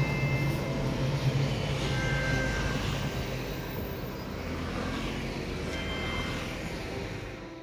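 Electric passenger train running across a railway bridge, its low rumble fading steadily as the train moves away.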